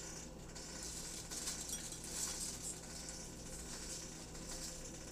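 Faint crackling of crisp chips being broken by hand and dropped onto a bowl of food, over a steady low hum.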